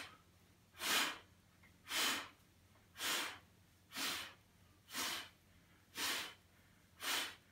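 A man's sharp, forceful breaths out, about one every second (eight in all), timed to each switch of the legs in the Pilates single-leg stretch.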